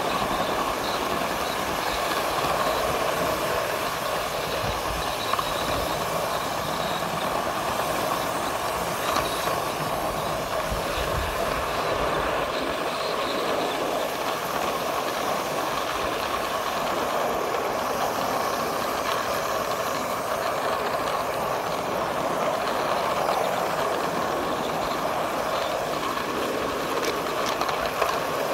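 Ride-on scale model of a K-28 locomotive and its tender running along a backyard track, making a steady, continuous rolling noise of wheels on rails.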